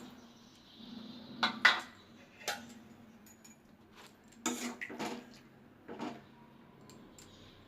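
A metal utensil clinking and knocking against a kadai in several separate sharp strikes, the loudest about a second and a half in, as the pineapple and water are worked in the pan.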